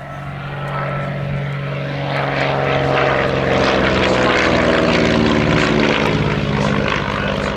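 North American Navion's Lycoming O-435 six-cylinder piston engine and propeller in a flypast: it grows louder, peaks about halfway through, and drops in pitch as the aircraft passes.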